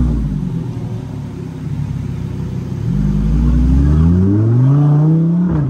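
A sports car engine revving: the pitch sinks at the start, then climbs steadily for a couple of seconds before dropping sharply near the end and settling back to a steady low idle.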